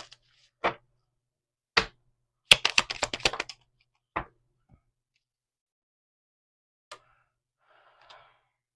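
Tarot cards being handled and tapped against a tabletop: single sharp knocks, a quick rattling run of about ten clicks around the middle, and a soft rustle near the end.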